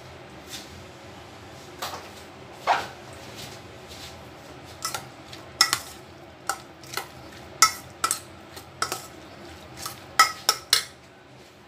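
Metal spoon stirring chopped tomatoes and onions in a stainless steel bowl, clinking against the bowl's side in irregular ringing knocks, most of them in the second half.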